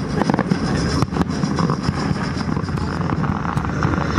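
Fireworks going off: repeated sharp bangs and crackles over a steady rumbling din.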